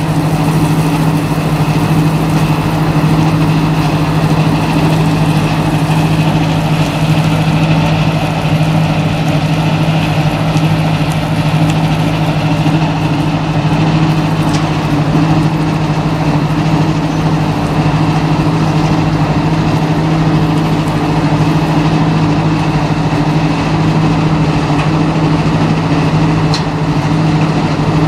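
Mobile rotary impact crusher running steadily: a continuous engine drone with a low hum, over the rattle of crushed stone pouring off the discharge conveyor.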